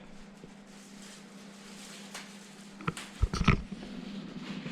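Steady low hum of a portable car fridge's compressor running while it cools down, with a few sharp clicks and knocks about three seconds in.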